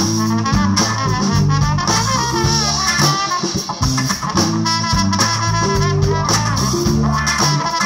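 Live band playing with a horn section of saxophone, trumpet and trombone over acoustic guitar, electric bass and drums.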